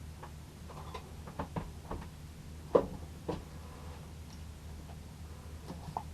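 Light clicks and knocks of a fairing-compound container and hardener being handled, with one sharper knock a little before halfway, over a low steady hum.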